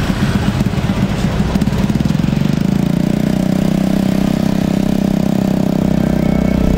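Small motorcycle engine of a motorcycle-and-sidecar rickshaw running as it rides along the road, rough at first and settling into a steady hum about two and a half seconds in.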